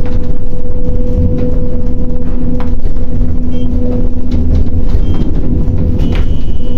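Crane's engine and hydraulic power unit running steadily while the boom is at rest: a loud low rumble with a steady hum over it.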